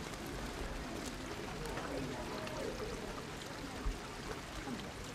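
Steady hiss of rain falling, with faint voices of people talking in the background.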